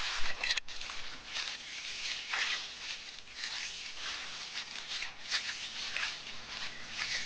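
Hand float or trowel scraping across wet concrete in repeated, irregular strokes as the surface is smoothed before brushing.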